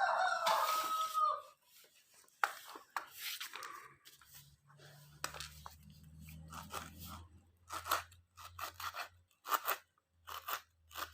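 Victorinox kitchen knife chopping on a cutting board: irregular crunchy cuts, then a steadier chop of about two to three strokes a second. A short squeaky sound comes first, and a low hum runs under the second half.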